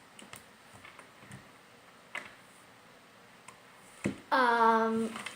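A few faint clicks in a quiet room, then, near the end, a girl's voice holding one steady note for about a second.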